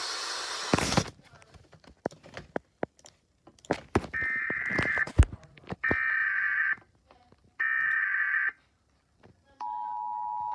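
Emergency Alert System signal: a short burst of static cuts in with a few clicks. Then come three one-second bursts of screeching data tones, the SAME header. About nine and a half seconds in, the steady two-tone attention signal starts.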